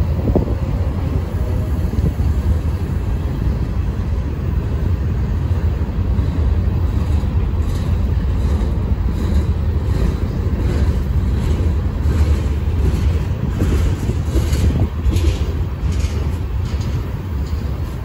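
Slow freight train's cars, covered hoppers and tank cars, rolling past on steel wheels: a steady low rumble on the rails, with scattered quick clicks and clanks through the middle.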